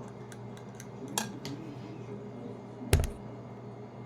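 Kitchen clatter while cooking: a few light clicks of utensils and dishes over a steady low hum, then one loud thud about three seconds in, as of something set down hard on the counter.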